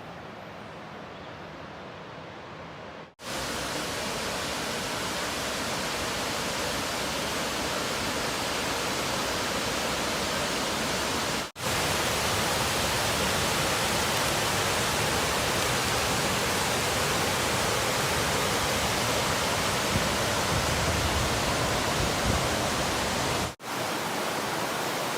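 Steady rushing of fast-flowing water, such as a waterfall or cascading stream, quieter for the first three seconds and then louder, broken by two brief dropouts where clips are cut together.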